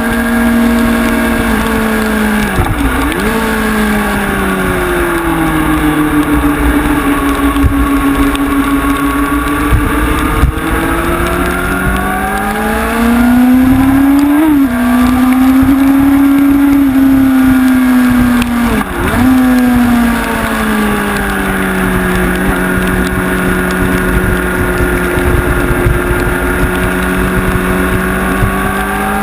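Honda CBR sport bike's inline-four engine heard onboard at high revs, its pitch rising and falling in long slow sweeps, with quick gear changes about three seconds in, about halfway and about two-thirds of the way through. A steady rush of wind runs underneath.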